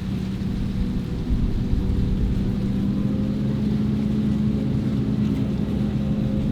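Heavy diesel engine of farm machinery running steadily under load, its pitch edging up slightly about three seconds in.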